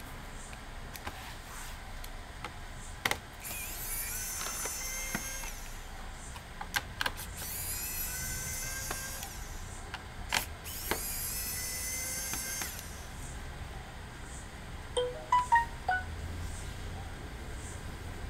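A small electric screwdriver whirs in three short runs of a second or two each, separated by sharp clicks and taps on plastic, as it works the laptop's screws.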